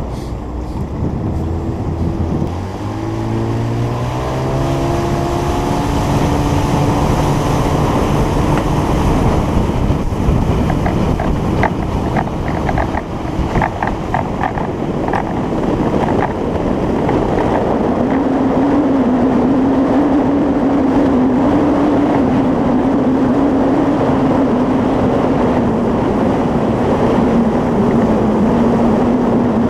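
Fishing boat's motor throttling up, its pitch rising over the first few seconds, then running steadily at speed with wind and water rushing past.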